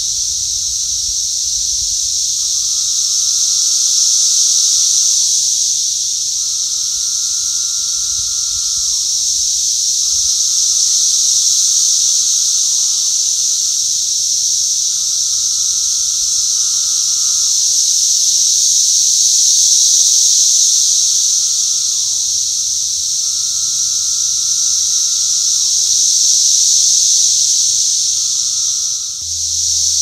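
Chorus of 17-year periodical cicadas: a loud, steady, high-pitched whine from a great many insects. Over it, a lower call from nearer cicadas repeats about every four seconds, each call ending in a drop in pitch.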